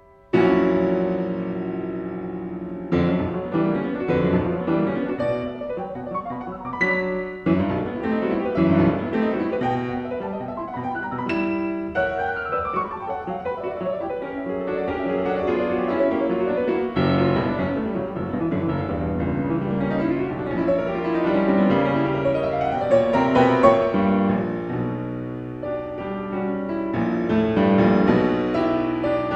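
Piano music, a busy stream of notes with quick runs, starting suddenly about half a second in.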